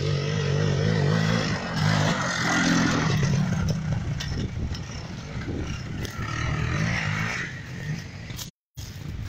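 Enduro motorcycle engine revving hard as the bike passes close by, then fading as it rides away, with a second rise in revs about six to seven seconds in. The sound cuts out for a moment near the end.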